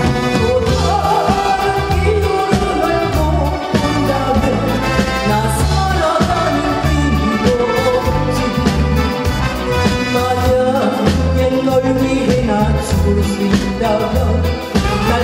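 A woman singing a Korean ballad live with a band behind her, the bass and drums keeping a steady beat.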